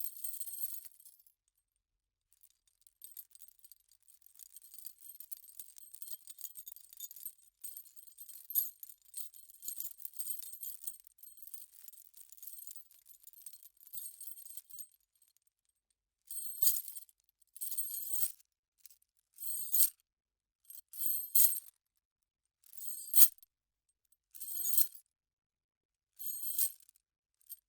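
Metal chain rattling and jingling as it is handled: a long stretch of continuous bright rattling, then a run of short separate shakes a second or two apart, one of them a sharp clank.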